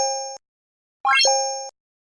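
Chime sound effects for a like-and-subscribe animation: a quick rising run of notes, then a bright two-toned ding that fades out. This happens twice, about 1.3 seconds apart.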